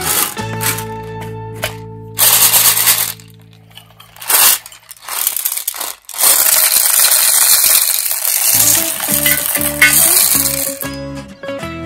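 M&M's candies poured from a tin into a plastic toy school bus: a continuous pour of hard-shelled candy landing on plastic and on other candy, lasting about five seconds from about halfway in. Background music plays, with a couple of shorter bursts of the same noise before the pour.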